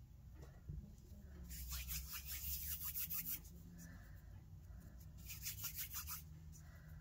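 Quick, scratchy rubbing strokes in two bursts: one about a second and a half in that lasts about two seconds, and a shorter one about five seconds in.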